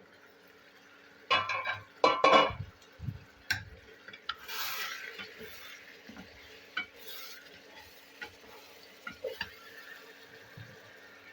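Stirring in a cooking pot: a spoon clatters and scrapes loudly against the pot for about a second early on, followed by lighter knocks and clinks. A faint steady hum runs underneath.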